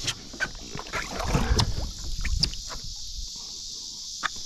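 Handling noise on a small boat: a few sharp knocks and rubbing against the hull with some water movement as a jug line is reached for and lifted, loudest between about one and two seconds in. Over it runs a steady high drone of insects.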